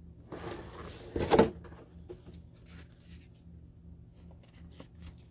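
Cardboard diecast car box being handled and opened by hand: a rustling scrape, loudest about a second in, then a few light clicks and taps of the packaging.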